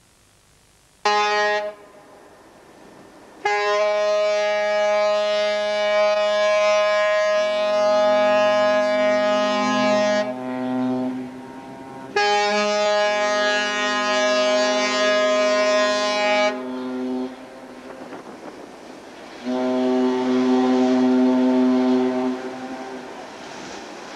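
Ships' horns sounding: one short blast, then three long blasts of several seconds each, with a second, deeper horn joining in on the first two long blasts.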